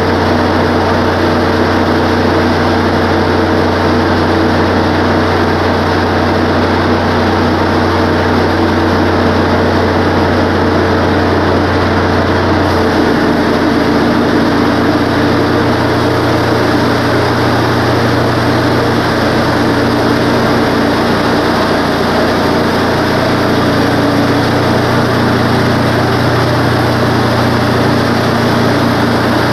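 Wood-Mizer LT15 bandsaw mill sawing a pine log: the head's engine runs steadily under load while the band blade cuts. Partway through, the engine note steps up slightly.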